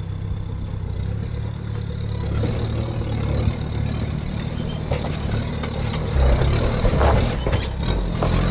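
Sherp all-terrain vehicle's diesel engine working under load as it climbs onto a trailer, with a high whine rising from about two seconds in and the engine pulling harder from about six seconds in. A few knocks near the end.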